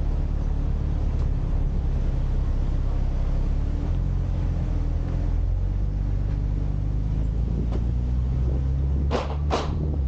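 Engine running with a steady low drone at an even speed, with two short sharp sounds about nine seconds in.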